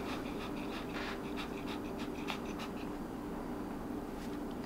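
A small shaggy dog close by, making faint irregular clicking mouth and breathing sounds over a steady low hum.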